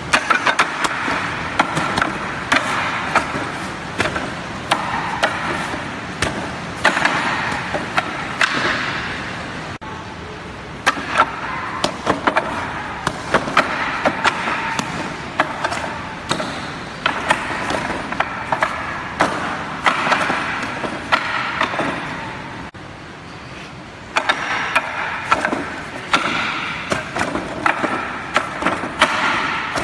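Palms and forearms striking the wooden arms of a Wing Chun wooden dummy (mook jong): rapid, irregular wooden knocks and clacks, some much sharper than the rest.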